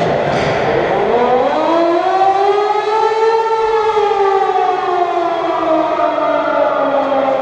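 A siren winding up over about two seconds, then slowly winding down in pitch and running on, one long wail.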